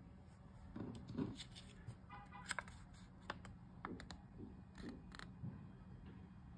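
A paper Bulgarian 5-leva banknote handled between the fingers as it is lifted and held up: faint crinkling and scattered crisp little snaps of the paper, mostly in the first five seconds.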